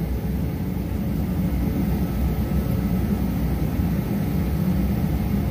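Workshop heater running with a steady, loud low rumble.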